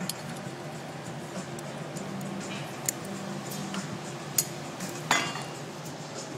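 Glassblowing tools clinking against metal and glass: a few light, sharp clinks, then one louder ringing clink about five seconds in, over a low hum.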